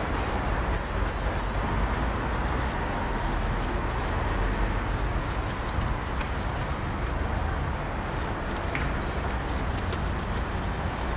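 Hand wheel brush scrubbing a wet alloy wheel, heard as many short, repeated swishes, over a steady rumbling background noise.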